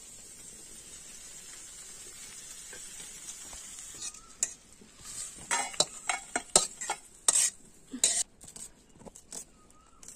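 Small fish sizzling steadily in hot oil in a wok, then from about four seconds in a metal spatula scraping and clattering against the wok in a run of sharp clicks as the fried fish are lifted out onto a steel plate.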